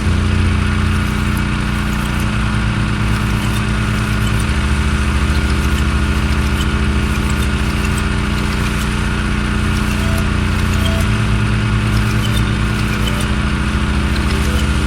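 Gas-engine pressure washer running steadily, its low engine note shifting in steps a few times.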